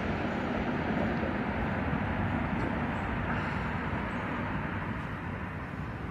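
Steady rumble of a passing vehicle, easing slightly toward the end.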